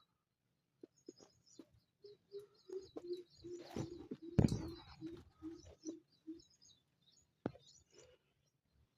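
Small birds chirping over and over, with a run of about a dozen short low notes, some three a second, in the middle. A few knocks come through it, the loudest about halfway through and a sharp one near the end.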